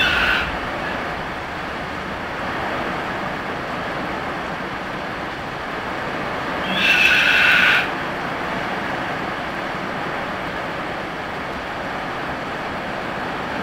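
Heavy rain drumming steadily on a metal porch roof, an even roar. About seven seconds in, a blue-and-gold macaw gives one harsh call lasting about a second.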